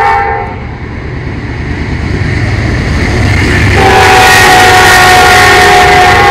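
Freight train locomotive horn blowing a multi-note chord over the train's steady low rumble. A short blast stops about half a second in; a long, very loud blast begins a little before four seconds in, its pitch sagging slightly as it holds.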